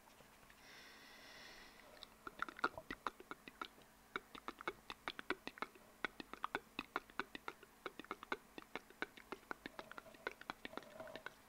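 Close-miked ASMR mouth sounds: quick, sharp wet clicks of tongue and lips, several a second, starting about two seconds in and running on with a brief pause.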